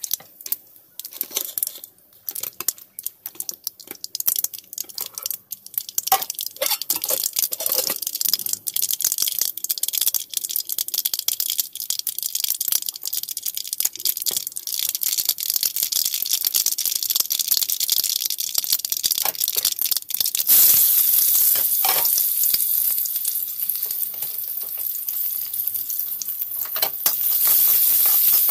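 Mustard seeds popping and crackling in hot oil in a steel pan, the crackle thickening into a steady sizzle. About two-thirds of the way through the sizzle turns suddenly louder, as chopped pieces go into the oil, and a spoon stirs them near the end.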